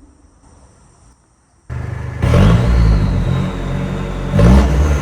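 Mazda BT-50's engine, fitted with a new turbo, comes in suddenly under hard acceleration, its pitch rising twice.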